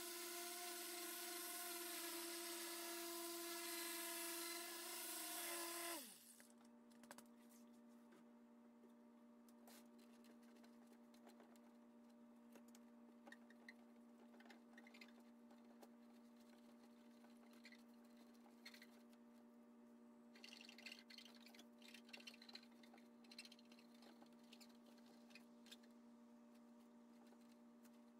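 Handheld electric polisher with a foam pad running with a steady whine, then switched off about six seconds in, its pitch falling as it spins down. After that there is faint rubbing of a microfiber towel wiping the panel over a steady low hum.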